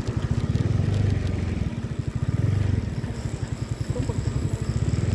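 Motorcycle engine running with a rapid, even low putter, the level swelling and easing a little.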